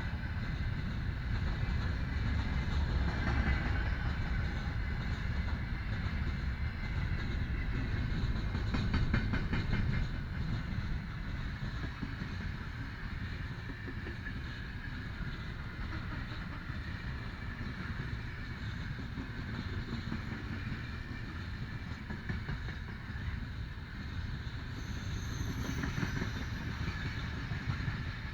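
Freight train rolling past on the main line, a steady rumble with wheels knocking over the rails. The rumble eases slightly partway through.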